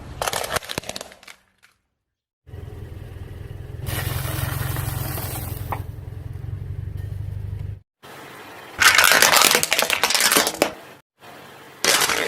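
Car tyre rolling over and crushing crunchy objects: bursts of cracking and crunching, with a stretch of steady low engine hum in the middle and dead silence between the pieces.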